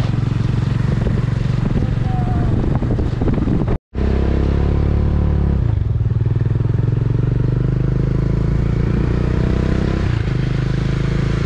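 Motorcycle engine running at road speed under a steady rush of noise, heard from the pillion. The sound drops out for an instant about four seconds in. The engine pitch shifts about six seconds in and again near ten seconds.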